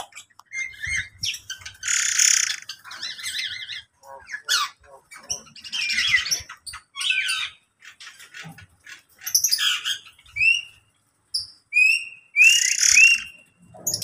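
Many birds of a mixed-species aviary calling over one another: harsh squawks broken up by quick chirps and short rising whistled notes.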